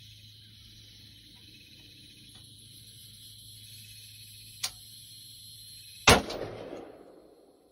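A rifle shot at a feral hog by the feeder: one sharp crack about six seconds in, trailing off in a rumbling echo over the next second. Before it, a steady high-pitched buzz in the background and a single soft click a little over a second before the shot.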